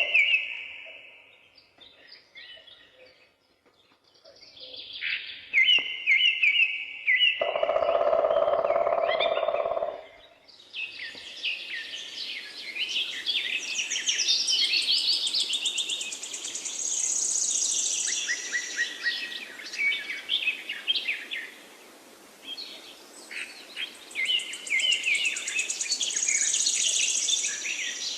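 Songbirds singing in a forest dawn chorus: scattered phrases at first, then from about ten seconds in a dense mix of many birds with high trills and whistles. A louder, lower sound of unclear source lasts about two seconds before the chorus thickens.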